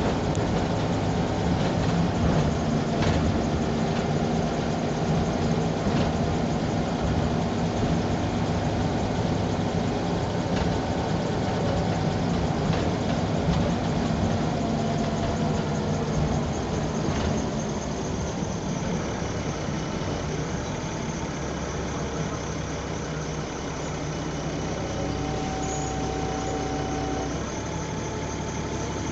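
Diesel engine of the Shoreline Suncruisers bus 27 (J800 SSB), heard from the rear seats: it runs steadily under way with scattered rattles from the body and fittings. After about 18 seconds it turns quieter and steadier, settling towards idle.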